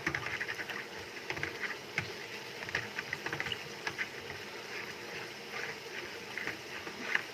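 A spoon briskly stirring coconut milk thinned with water in a bowl: quick, irregular clinks and scrapes of the spoon against the bowl with a light swish of liquid.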